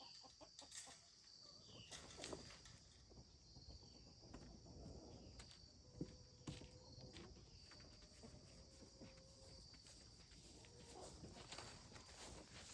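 Near silence outdoors: a faint steady high insect chirring, with scattered soft clicks and steps.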